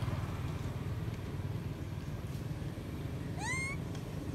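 A macaque gives one short, rising coo-like call about three and a half seconds in, over a steady low rumble.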